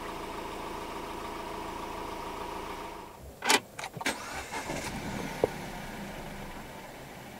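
2022 Ford Ranger 2.0 four-cylinder turbo-diesel idling steadily, heard from inside the cab. About three seconds in the idle stops, and a few sharp clicks and knocks follow, the loudest about half a second later.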